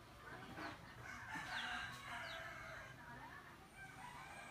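A rooster crowing: one long crow starting about a second in, with a few short high chirps of small birds around it.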